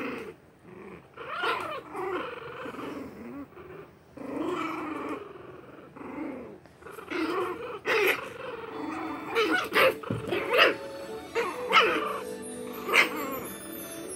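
Shih Tzu puppies play-fighting, growling at each other, with short sharp yips and barks coming thick and loud in the second half. It is littermate play growling, not real fighting.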